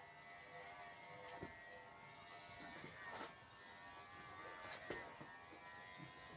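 Kemei KM-1986 electric hair clipper buzzing steadily as it shears a sheep's wool, with a few faint clicks along the way.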